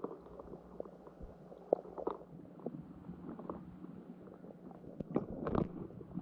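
Muffled underwater sound of shallow lake water heard through a submerged camera: a faint steady low hum with scattered small clicks and knocks, and a louder cluster of knocks about five seconds in.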